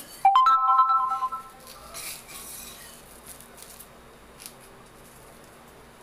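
A metal spatula clanks against a hot iron tawa and the metal rings for about a second. A short sizzle follows around two seconds in as the spatula spreads oil over the cooking batter, then a few light scrapes and taps.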